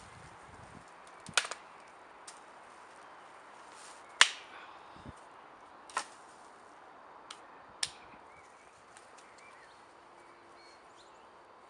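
Dry sticks and twigs cracking, about six sharp snaps a second or two apart, the loudest a little over four seconds in.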